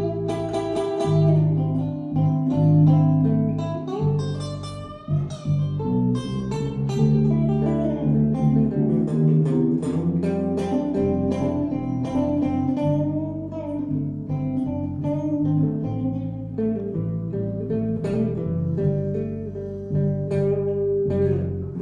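Instrumental break in a slow blues-soul song: a guitar picks a lead line of many plucked notes over held low notes, with no singing.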